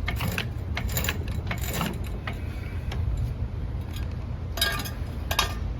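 Scattered metallic clicks and clanks of tire-change tools such as the jack being handled, with a brief cluster of knocks near the end, over a steady low rumble.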